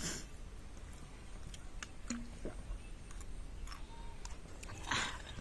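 Quiet eating sounds: scattered light clicks and taps, with one louder brief noise about five seconds in.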